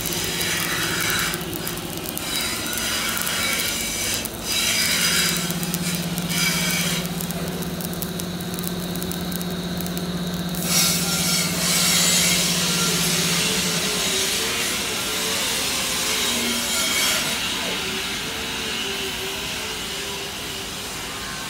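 Arc welding on the steel floor plate of a truck bed: the arc crackles in short runs with brief pauses, over a steady electrical hum. About ten seconds in the crackle gives way to a denser, even workshop noise.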